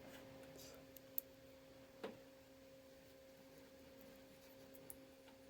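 Near silence with a faint steady hum and a few faint clicks, the sharpest about a second in and another about two seconds in, from small Dupont crimp pins and a plastic connector housing being handled.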